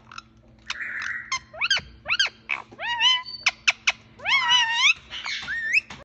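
Female Indian ringneck parakeet vocalising: a string of sharp clicks and short chirps mixed with rising-and-falling warbled calls. The longest warbles come a little after the midpoint and near the end.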